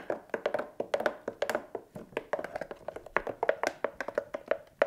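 A spoon stirring thick rose hip puree in a plastic blender jar, making many quick, irregular taps and scrapes. Water is being mixed into the puree to make it pourable.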